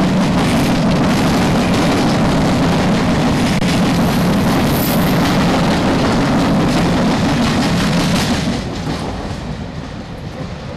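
A passenger train passing: a loud, steady rumble and rattle of wheels on the rails that begins to fade about eight and a half seconds in.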